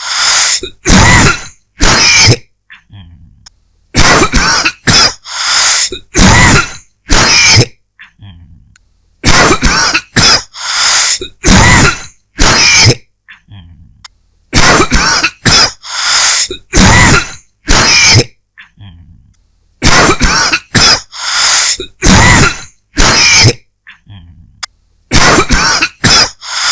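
A person's dry cough, coming in fits of several quick coughs each, about five fits, with short pauses between them.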